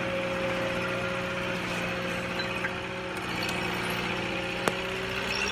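A steady idling engine hum made of a few even tones, with one sharp click near the end.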